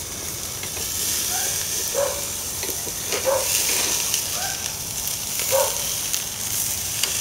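Porterhouse steaks sizzling on a searing-hot cast-iron grill grate as they are lifted and turned with metal tongs, with a few short scrapes of the tongs and meat against the grate.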